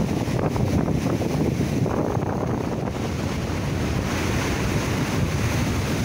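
Rough sea waves breaking and washing over rock-armour boulders at the foot of a seawall, with strong wind rumbling on the microphone.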